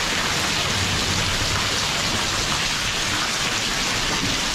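Heavy rain pouring down steadily as a dense, even hiss.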